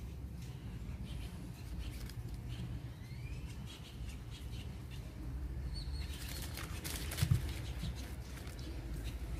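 Hands handling a plastic drone remote controller with faint clicks, then rustling and crinkling clear plastic parts packets from about six seconds in, with a soft thump on the table just after seven seconds. A steady low hum lies underneath.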